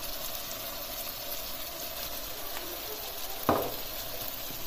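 Chicken pieces simmering and sizzling in their juices in a saucepan, a steady bubbling hiss. A single sharp tap about three and a half seconds in.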